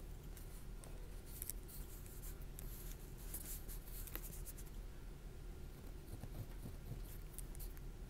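Pen scratching across paper close to the microphone, in irregular clusters of short scratchy strokes: one run from about one and a half to four seconds in, another near the end.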